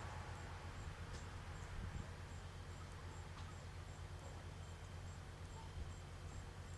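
Faint insect chirping, likely a cricket: a thin high chirp repeating evenly about two and a half times a second over a low steady hum.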